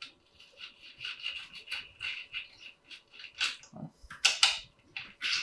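Hand tools scraping and clicking against metal engine parts as small screws are worked loose: a run of quick scratchy strokes, then a few sharper, louder clicks and knocks about four seconds in.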